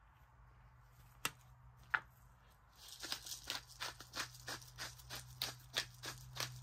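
Two sharp clicks as the pepper mill's cap comes off, then the hand-turned mill grinding black peppercorns in a run of short gritty strokes, about three a second.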